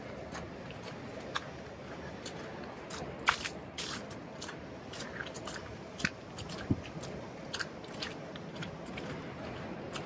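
Footsteps crunching in fresh snow at a walking pace, with short crisp crunches over a steady background hiss.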